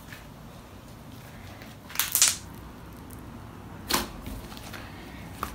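Stiff pink glue slime being stretched and pressed by hand, giving sharp clicks and pops of trapped air about two and four seconds in and a smaller one near the end.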